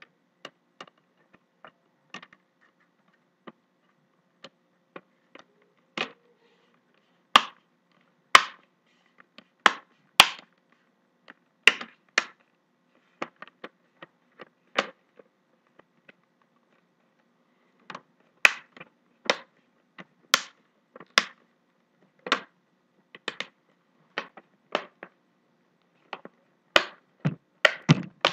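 Plastic screen bezel of a ThinkPad Edge 13 laptop being pressed back onto the display, its clips snapping into place: a long, irregular run of sharp clicks and snaps, some much louder than others.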